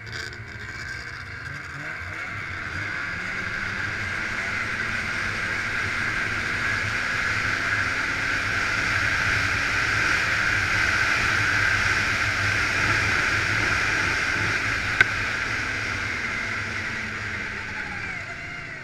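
Snowmobile engine running under throttle as the sled rides across open snow. The sound builds over the first ten seconds, with the engine pitch rising, holds, then eases off near the end as the sled slows. A single sharp click comes about fifteen seconds in.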